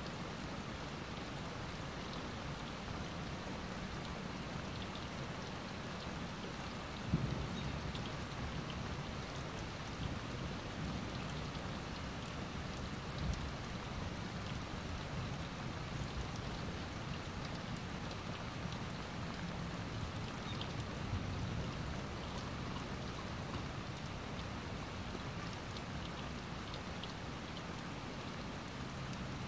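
Steady rain falling on a lawn and trees, an even hiss throughout. A few soft thumps stand out, the loudest about seven seconds in.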